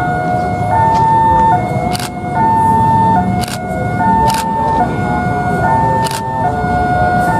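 Level-crossing warning alarm sounding a steady two-tone hi-lo pattern, switching tone about every three-quarters of a second, over the low engine rumble of a departing diesel railcar set. A few sharp clacks from the wheels run over the station points.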